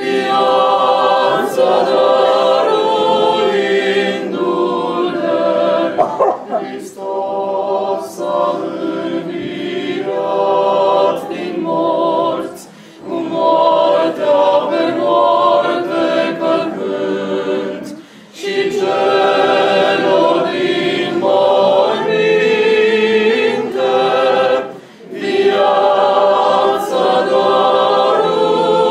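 Small mixed choir of men's and a woman's voices singing Orthodox liturgical chant in several parts without instruments. The chant runs in long phrases with short breaks between them.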